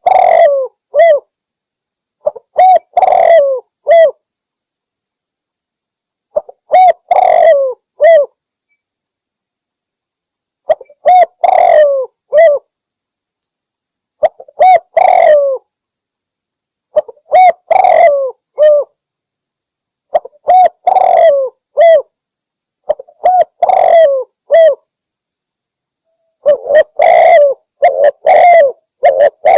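Spotted dove (Javan derkuku) cooing: a loud phrase of several low coos, ending in a separate final note, repeated about nine times with a second or two of silence between phrases.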